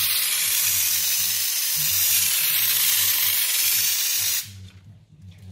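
Raptor Variable Gun spraying tintable Raptor paint from its bottle at about 50 PSI on a test pass, a steady loud hiss of air and paint that cuts off about four and a half seconds in. A low hum runs underneath.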